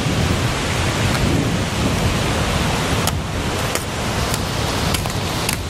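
Strong wind buffeting the microphone: a loud, steady, deep rush of noise, with a few light ticks in the second half.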